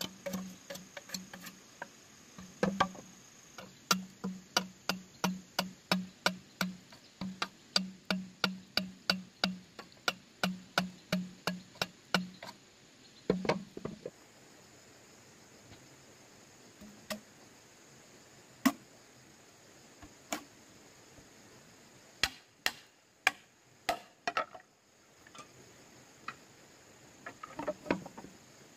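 Repeated knocks of a hand tool striking bamboo, fast and even at about three a second for some twelve seconds, then stopping. After that come single, scattered knocks and a short flurry near the end.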